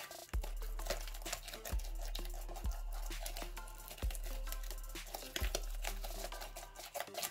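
Watery jiggly slime being stirred and pressed with a spatula in a glass dish as it is activated with boric acid, making sticky, wet noises. Background music with a deep thump about every second and a half plays under it.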